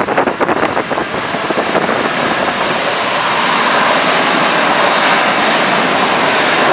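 Airbus A320-232's two IAE V2500 turbofans at takeoff thrust during the takeoff roll: loud jet engine noise that is uneven and crackling for the first couple of seconds, then settles into a steady, slowly building rush.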